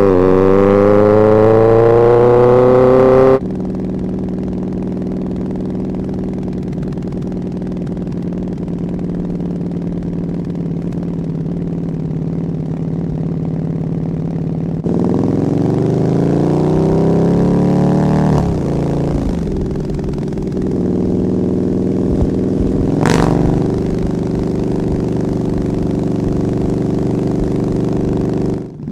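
Motorcycle engine heard from the rider's position. It accelerates with rising pitch for the first few seconds, then runs steadily. About halfway through it accelerates again, dips briefly at a gear change and pulls on, then settles back to a steady run, with one sharp click near the three-quarter mark.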